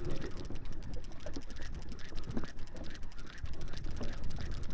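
Fishing reel clicking as line is worked on a hooked bonito: a fast, even run of fine clicks over a steady low rumble.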